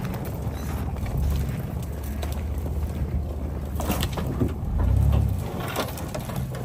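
Off-road truck driving slowly over a rough trail: a low engine and tyre rumble that swells twice, with scattered crunches and knocks.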